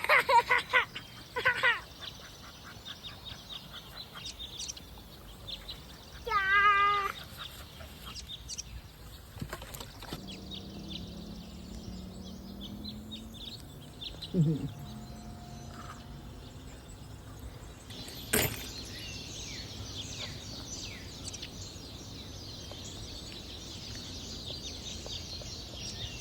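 Short pitched animal calls, one near the start and another about six seconds in, then many small birds chirping from about eighteen seconds in, with a sharp click just before the chirping.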